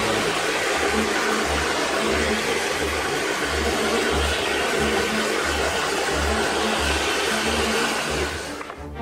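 Handheld gas blowtorch flame hissing steadily as it scorches a wooden board, stopping abruptly shortly before the end. Background music with a low steady beat plays underneath.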